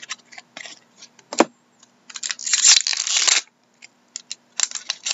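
Foil trading-card pack being torn open by hand: a few light clicks and rustles, then a loud crinkling tear lasting about a second, then more short crinkles near the end.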